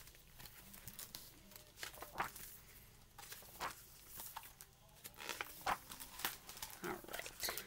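A hardback picture book being opened and handled: its cover and pages rustle and crinkle in a run of short, irregular crackles, busiest in the second half.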